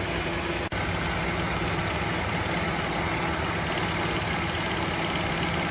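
Older Toyota Corolla's engine running at idle with a steady low rumble and hum.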